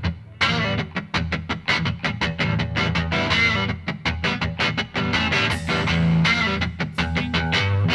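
Background music with guitar playing quick, rhythmic notes over a steady bass line.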